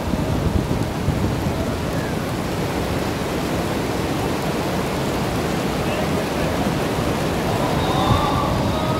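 Steady rain falling on a paved stone courtyard, heard as an even hiss over a heavy, flickering low rumble.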